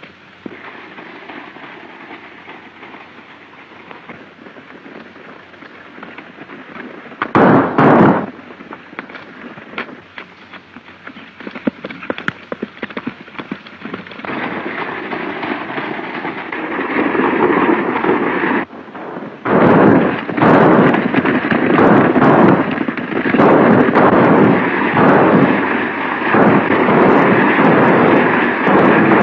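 Gunfire on an early-1930s film soundtrack: two loud shots in quick succession about seven seconds in, then from about halfway a dense, rapid clatter of shots and commotion that grows loud and keeps on.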